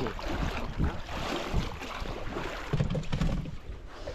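Wind buffeting the microphone over water splashing around a small aluminium boat, with a few low knocks about three seconds in.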